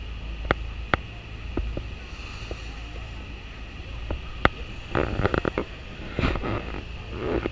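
Steady low rumble of Niagara Falls and wind on the microphone, with water splashing and slapping close by in scattered sharp hits, heaviest in a cluster about five seconds in and again after six seconds.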